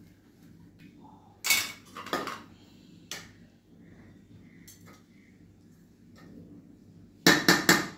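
Metal spoon knocking and scraping against a metal biryani pot while the rice is mixed. There is a sharp clatter about one and a half seconds in, a few lighter knocks after it, and four quick strikes near the end.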